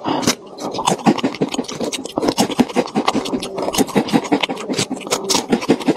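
Potato chips crackling and rustling as they are handled in a chip tube: dense, irregular crunchy crackles, several a second.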